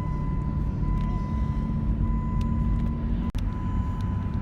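Car driving, heard from inside the cabin: a steady low road and engine rumble, with a thin steady high tone running alongside. The sound cuts out for an instant a little after three seconds in.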